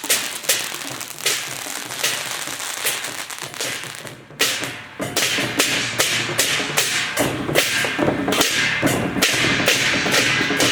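Temple procession percussion: a run of sharp cracks and knocks, dipping briefly about four seconds in, then settling into a steady beat of percussion hits from about seven seconds in.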